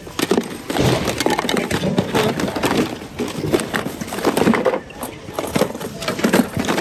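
Hands rummaging through a bin of mixed merchandise: plastic blister packs, cardboard boxes and plastic toys knocking, clattering and rustling against each other in quick, irregular bursts.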